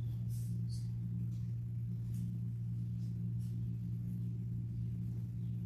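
Steady low electrical hum, a constant drone that does not change, with a few faint brief rustles over it.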